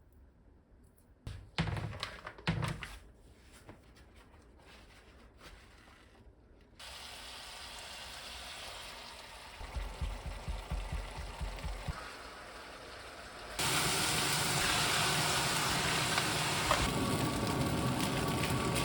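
Food sizzling and crackling in a hot frying pan, growing suddenly much louder about two-thirds of the way in, after a few knocks near the start.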